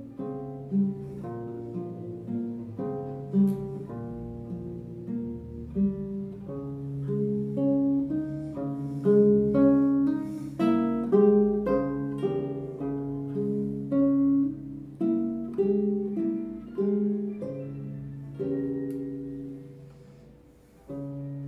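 Solo classical guitar, nylon strings fingerpicked: a steady flow of plucked notes over held bass notes, swelling louder toward the middle. Near the end the sound dies away almost to silence before a fresh note is struck.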